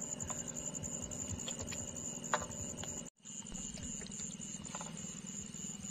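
Night chorus of calling insects and animals: a steady high trill over a fast, even low pulsing. It cuts out briefly about three seconds in.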